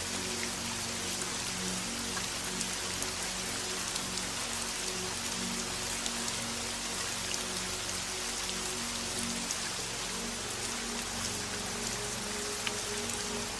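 Steady rain, an even hiss with scattered sharp drop ticks, over soft background music of slow, held low notes.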